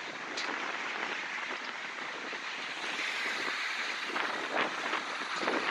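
Steady rushing outdoor noise of street traffic and a blustery wind, with a few faint ticks near the end.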